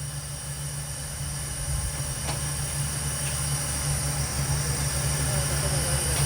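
Borewell drilling rig running, with a fast low pulsing and a steady high whine, growing gradually louder. A single short click about two seconds in.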